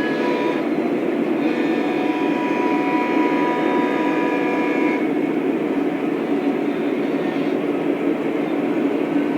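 Lionel O-scale model diesel train running on its track: a steady rumble of wheels and motors, with pitched tones over it that come and go, fading about five seconds in.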